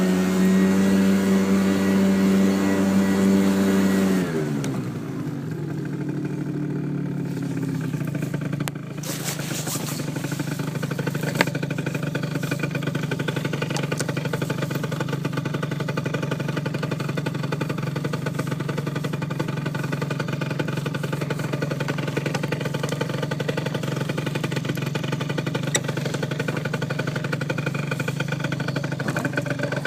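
49cc Yamaha Zuma scooter engine running at speed, dropping in pitch about four seconds in as it slows, then running steadily at a lower pitch.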